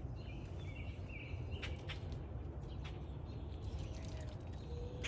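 Small wild birds chirping and calling in short notes, over a steady low rumble.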